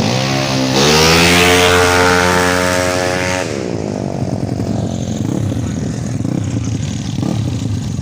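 Drag-racing Yamaha Mio scooter engine accelerating hard at full throttle, its pitch climbing steadily for a few seconds, then dropping and fading away as it goes past.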